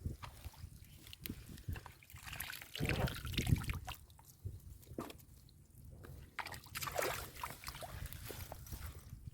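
Shallow water sloshing and trickling in irregular splashes, with louder bursts about three seconds in and again about seven seconds in.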